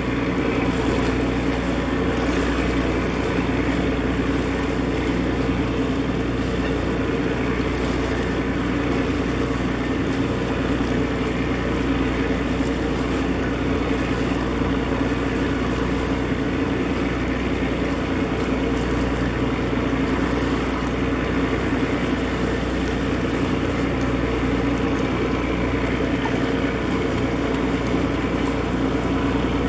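A ship's engine droning steadily, with a low hum beneath and no change in pitch or level.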